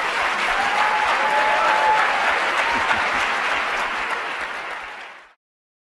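Audience applauding, dying away and cutting off about five seconds in.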